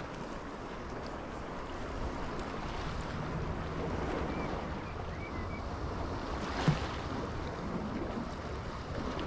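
Mediterranean sea waves washing against shoreline rocks, with wind on the microphone; a single short knock about two-thirds of the way through.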